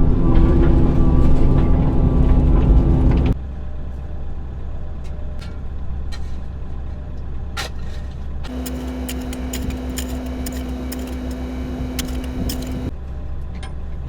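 Midsize excavator's diesel engine running. It is loud at first and drops sharply to a lower, steady level about three seconds in. A steady hum joins it from about eight and a half seconds to near the end, along with a few scattered clicks and knocks.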